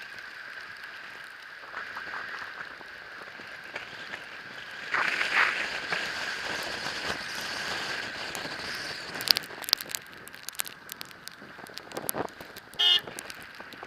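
E-bike riding through snow: a steady hiss and crackle of tyres and snow with a constant high whine underneath, a louder rush about five seconds in, a few sharp clicks around ten seconds, and a brief squeak near the end.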